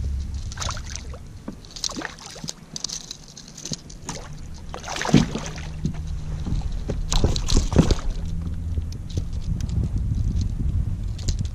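Water sloshing and splashing against a Hobie Outback kayak, with irregular sharp knocks and a steady low rumble. The knocks are loudest about five and eight seconds in.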